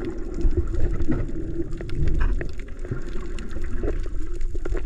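Underwater sound picked up by a camera in the sea: a steady low rumble and hum with many scattered clicks and crackles.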